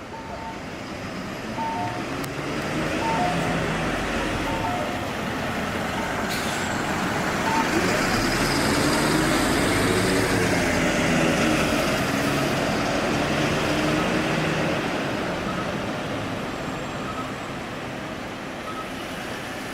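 Keisei bus turn-signal chime: short beeps alternating between two pitches, over the running bus engine. The engine note rises and then falls in the middle as the bus moves off, partly covering the chime, which comes through again faintly near the end.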